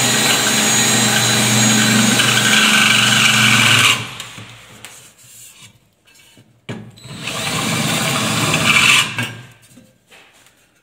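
Electric power drill running in two bursts: a steady run of about four seconds that stops and winds down, then a second, shorter run about seven seconds in.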